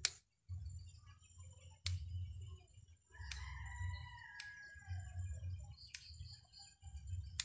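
Scissors snipping thin bonsai twigs: a handful of sharp snips spaced a second or more apart, over a low rumble. A bird calls once in the background, a drawn-out call a little over three seconds in.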